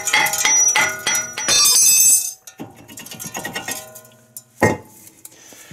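Old cast-iron brake rotor clanking and ringing like a bell as it is worked off the wheel hub studs: a run of sharp metallic strikes in the first two seconds, more around the third second, and a last sharp clank near the end.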